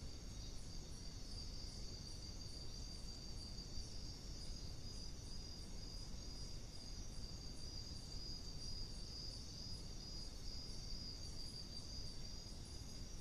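Night insects, crickets, trilling steadily in a continuous chorus, with a higher chirp pulsing about two to three times a second over it. Under it lies the trail camera's low, even background hiss.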